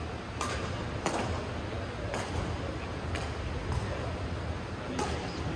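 Badminton rackets striking a shuttlecock in a doubles rally: sharp cracks about once a second, six in all, over the steady background of a busy sports hall with people talking.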